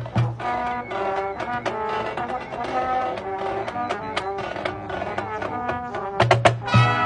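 College marching band playing: sustained brass chords over drumline strikes, with a run of loud drum hits about six seconds in.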